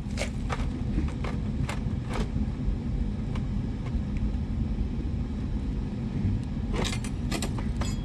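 Steel pry bar levering up a slab of basement concrete floor that has already separated, so it comes loose without a hammer. Scattered knocks and scrapes of metal on concrete, with a quick cluster near the end as the slab edge lifts and cracks, over a steady low rumble.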